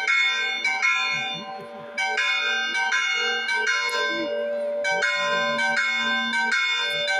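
Church bells ringing for a religious procession, several bells of different pitch struck in quick, irregular succession so that their tones overlap, with a short lull just before two seconds in.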